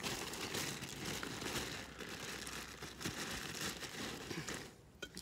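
Close rustling and crackling right on the microphone as a dog's muzzle and fur brush against the phone, easing off near the end.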